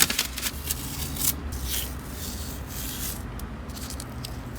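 Light rubbing and scratching sounds over a low steady hum.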